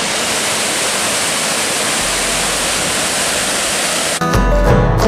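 Steady rush of a 70-foot waterfall pouring into its pool. About four seconds in, plucked-string music with a bluegrass feel cuts in over it.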